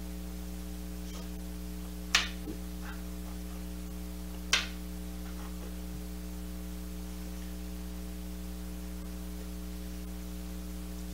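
Steady electrical mains hum, broken by two sharp clicks about two and a half seconds apart.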